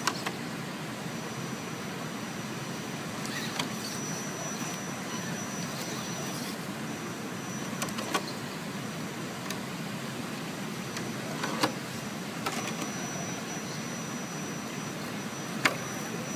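Axial SCX10 RC rock crawler's electric motor and drivetrain whining as it crawls slowly over rocks. The thin high whine drops out briefly a few times, and there are four or five sharp knocks against the rock, the loudest near the end.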